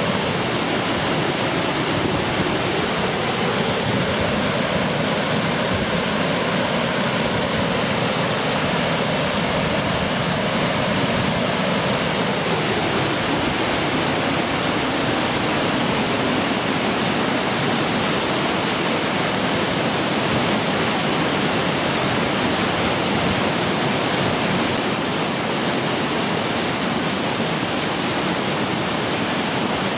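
Floodwater of the swollen South Platte River rushing over a submerged water break, a steady, loud noise of churning rapids.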